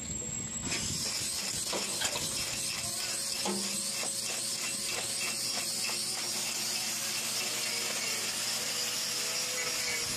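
Hoof-trimming equipment at a cattle trimming chute giving a steady high hiss with a faint whine under it, starting about a second in.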